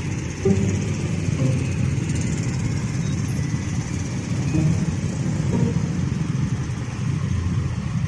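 Steady low rumble of passing vehicles, engines running.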